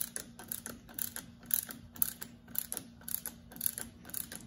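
Small ratchet wrench clicking in short runs, stroke after stroke, as a nut is ratcheted down a bolt to draw a hose-clamp-squeezed polyurethane shock bushing into the shock eye.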